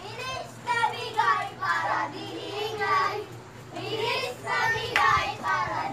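A child's high voice singing in short phrases, with brief pauses between them.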